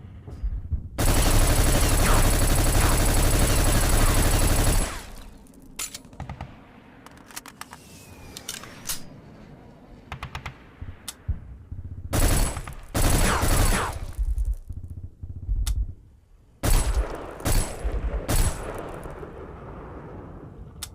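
Colt AR-15A2 Government Carbine firing: a sustained fully automatic burst of about four seconds, then scattered clicks and knocks, then two shorter bursts of rapid fire near the middle and toward the end.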